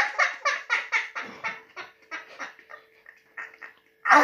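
A boy laughing hard: a quick run of 'ha' pulses, about four a second, fading away over about three seconds, then a sudden louder burst near the end.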